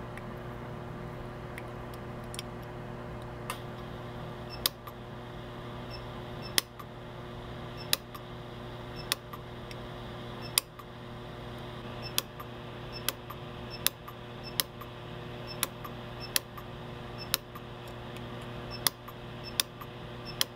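Lampert PUK 5 pulse arc welder firing single weld pulses, each a sharp click, sparse at first and then about one a second, as thin silver wire is fused into pinholes in a silver piece. Under them a dust collector, used as a fume extractor, hums steadily.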